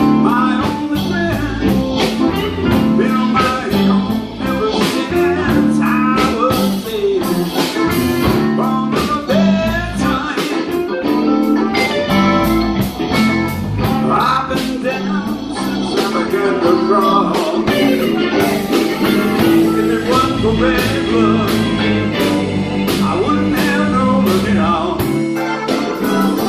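Live blues band playing: electric guitar over bass, with drums keeping a steady beat.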